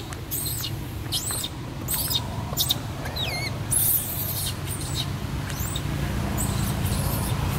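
Baby long-tailed macaque crying: a string of short, high-pitched squeals that bend up and down, one wavering cry falling in pitch about three seconds in. A steady low rumble runs underneath.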